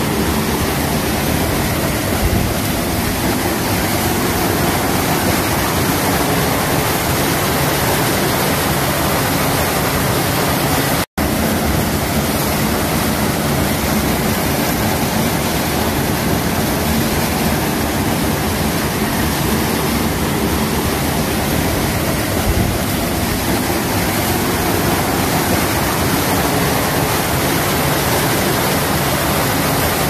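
Hot-spring water pouring off the end of wooden channels in a broad fall into a pool, a steady rush of falling water that breaks off for an instant about eleven seconds in.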